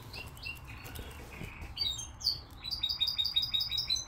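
A pet bird chirping and singing: scattered short chirps, then a fast run of repeated high notes that builds toward the end.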